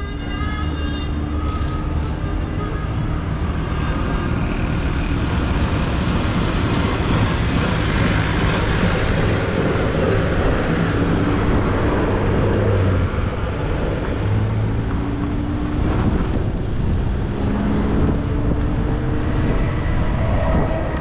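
Pickup truck driving on a road: the engine running under a steady rush of tyre and wind noise, its note rising a few times later on as it gathers speed.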